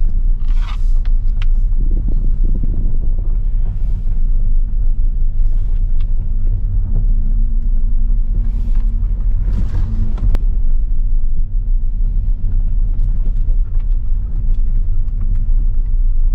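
Car driving along a road: a steady low rumble of engine and tyres, with a few brief hissing swishes.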